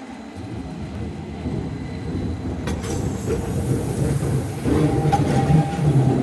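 Keihan 800 series train passing close on street-running track, its rumble growing steadily louder as it approaches. Sharp wheel clacks come about halfway through and again at the end, and a steady high whine joins the rumble about two-thirds of the way in.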